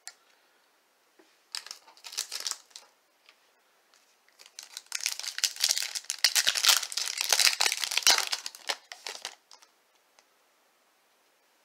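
Trading-card pack wrapper crinkling and being torn open: a short crinkle about a second and a half in, then a longer spell of dense crinkling and tearing from about four to nine seconds.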